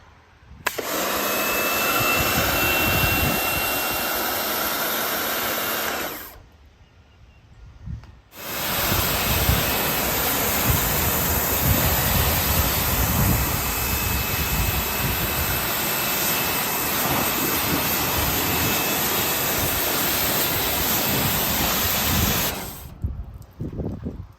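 Kärcher K2 electric pressure washer running and spraying water, with a steady, hissing noise. It runs in two long stretches with a break of about two seconds, about six seconds in.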